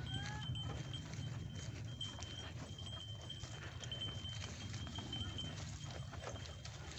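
A pair of bullocks pulling a plough, their hooves tramping irregularly over ploughed soil, over a steady low rumble. A thin high tone comes and goes, and a short rising whistle-like glide sounds right at the start.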